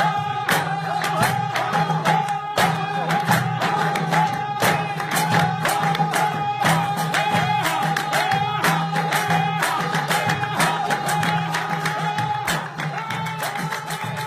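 Background music: quick plucked guitar-like strings with a long held high note over them, getting quieter near the end.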